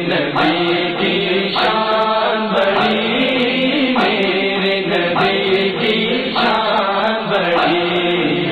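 Layered chorus of voices chanting a sustained background line of a naat (Islamic devotional song), with no lead lyrics.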